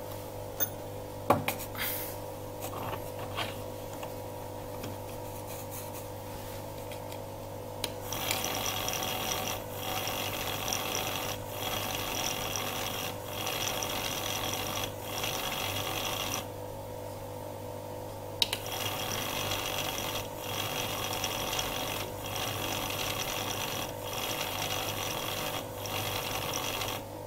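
Bench lapping machine for Bosch common-rail piezo injector valve pins running, a steady hum under a rasping, scraping grind of the pin's sealing seat. The scrape comes in runs of about a second and a half with brief breaks and stops for about two seconds partway through. A few clicks and knocks come first, as metal parts are set into the fixture.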